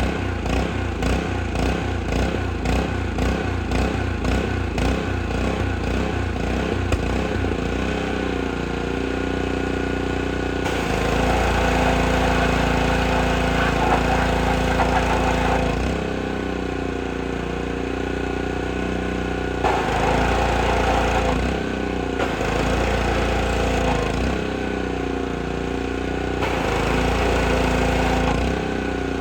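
Honda GCV190 single-cylinder engine on a Craftsman 3200 psi pressure washer running. For the first several seconds it surges with an even pulsing, the slight no-load surge of an engine running a touch lean. Then the spray wand is triggered in several bursts: high-pressure water hisses over the engine, which runs steadily under the load.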